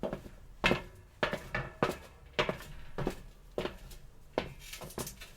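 Footsteps on metal: a steady walking pace of about two steps a second, each step a sharp metallic clank with a brief ring, some landing as quick double hits.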